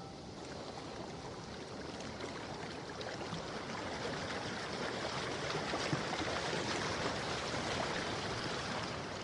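Running water: a steady rushing with small splashy ticks, growing slowly louder.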